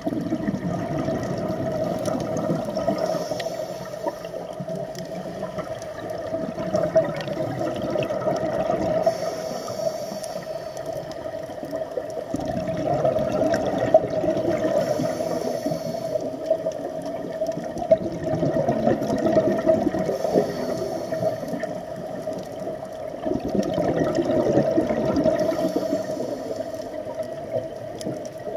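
Scuba regulator breathing underwater: a hiss on each inhale and a burst of bubbles on each exhale, coming round about every five to six seconds.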